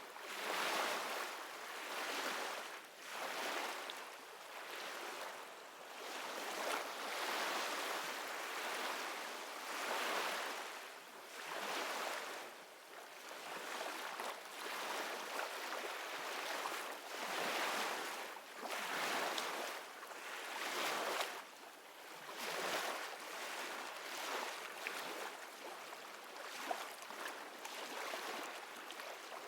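Ocean surf: waves washing in and drawing back in slow swells, one every couple of seconds.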